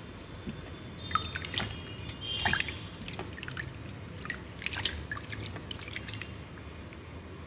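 Wet soap bars, a chandan haldi soap among them, being rubbed and squeezed together by hand in a steel bowl of water while being lathered: a run of short wet clicks and drips, busiest from about one to six seconds in.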